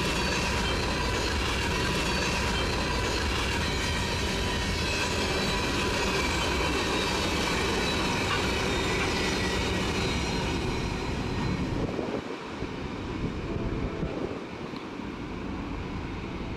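Freight train of open-top gondola and hopper cars rolling past, steel wheels rumbling on the rails with a thin steady squeal. The noise falls away about twelve seconds in as the last car goes by.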